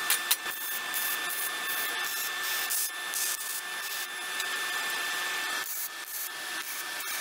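MIG welder arc crackling and hissing steadily as steel frame tubing is welded, the sound shifting a little over a second before the end. A couple of sharp metal knocks right at the start.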